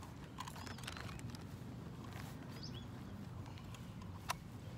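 Faint outdoor ambience: a steady low hum with scattered small clicks and rustles from handling, and one sharp click about four seconds in.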